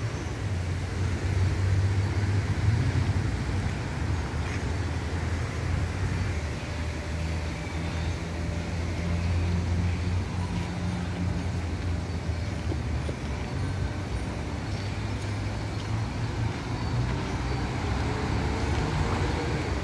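Steady city road traffic: a continuous low rumble of car and bus engines and tyres from the surrounding streets.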